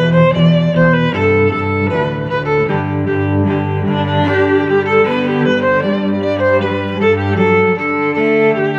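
Background instrumental music: a violin melody over lower sustained string notes, the notes changing about every second.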